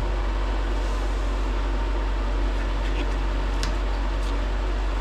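Steady whooshing hum of a running fan, even in level throughout, with a few faint light clicks about three and a half and four seconds in.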